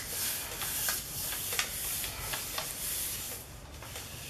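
Hands rubbing a sheet of copy paper back and forth over a paint-covered gel printing plate: a soft papery swishing hiss with a few light rustles. Near the end the paper is peeled up off the plate.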